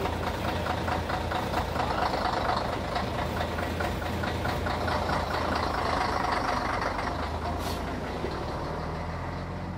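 1957 Scania-Vabis Regent (L71) truck's diesel engine idling steadily, a low even rumble with a rapid, regular knock.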